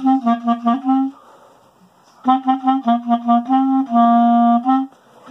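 B-flat clarinet playing phrases of short, detached notes, with a rest of about a second after the first phrase, then a longer phrase with one held note near its end.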